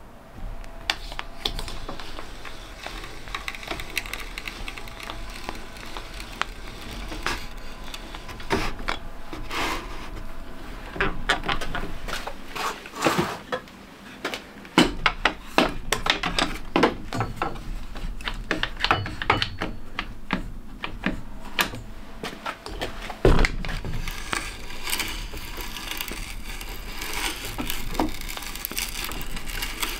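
A large bit boring a hole into plywood: irregular crunching and scraping of wood being cut, with many sharp clicks and a loud knock about three-quarters of the way through.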